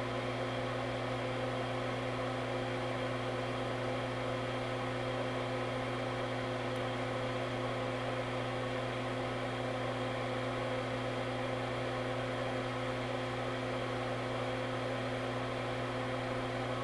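Steady electrical hum and whir from running workbench equipment, holding at one pitch and level throughout.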